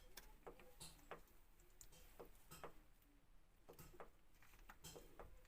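Near silence with faint, irregular ticks every half second or so.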